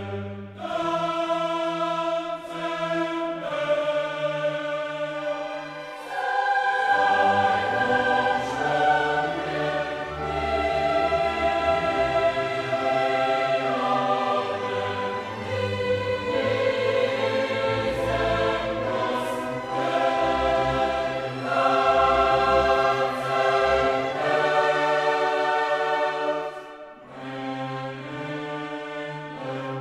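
Background choral music: a choir singing slow, sustained chords, growing fuller about six seconds in.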